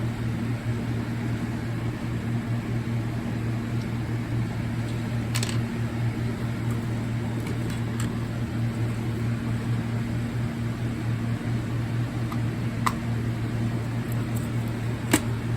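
Steady low mechanical hum of a fan running in the room, with a few light, sharp clicks of handling as the alarm harnesses are wired up. The sharpest click comes near the end.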